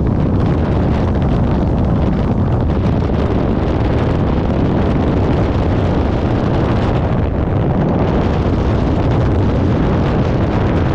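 Loud, steady wind buffeting the microphone, a continuous low rumbling rush with no breaks.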